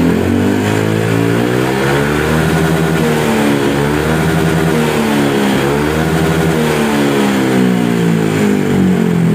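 Honda PCX 160 scooter's single-cylinder engine revved through an SKR aftermarket exhaust, its pitch rising and falling repeatedly. The note is a mellow, deep growl ("adem gerung", "super bas") rather than a loud, raspy one.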